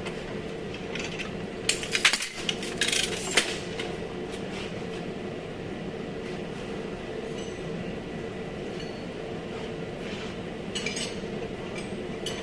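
Light metallic clinks and clicks of tools or metal parts being handled, a quick cluster about two seconds in and a few more near the end, over a steady background hum.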